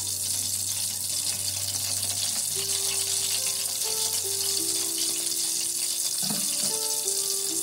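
Hot oil sizzling steadily as egg-coated, pork-stuffed lemongrass deep-fries in a wok. Soft background music with held notes plays underneath.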